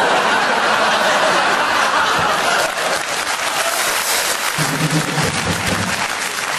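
Studio audience applauding, with some laughter mixed in.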